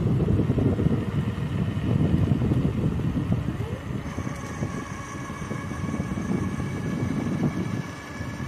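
Wind buffeting the microphone while riding an e-bike, a gusty rumble. About halfway through, a steady high whine from the 250-watt front hub motor comes in and holds.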